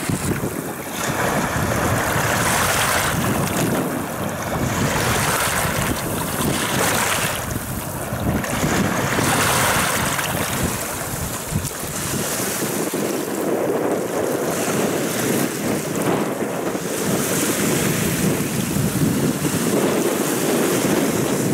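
Storm-driven waves breaking and washing over a pebble shore, surging every few seconds, with strong wind buffeting the microphone.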